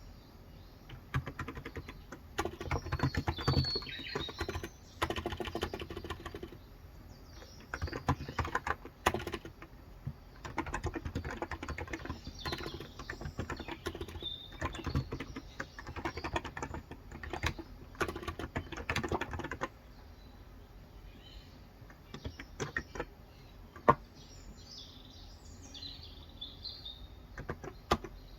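Typing on a Cox Endeavour electrostatic capacitive (non-contact) 35 g tenkeyless keyboard: quick runs of keystrokes in bursts, thinning to a few scattered single keystrokes after about 20 seconds. Birds chirp in the background, most clearly near the end.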